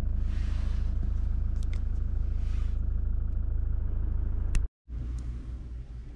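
Mazda CX-30's Skyactiv-D diesel engine idling, heard from inside the cabin as a steady low rumble, with a couple of soft rustles and light clicks. A sharp click comes about four and a half seconds in, and the sound cuts off suddenly, returning as a quieter low hum.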